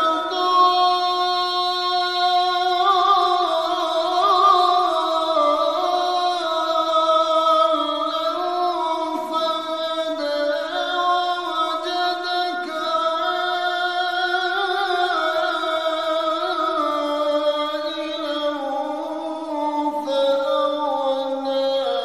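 Music: a slow melody of long held notes with singing, and no beat.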